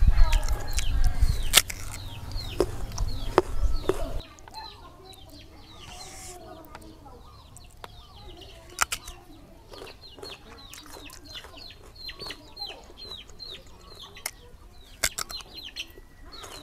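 Chickens calling in the background, a long run of short falling peeps repeated over and over. Over them come sharp crunching clicks of bites into and chewing of unripe green mango, thickest in the first four seconds.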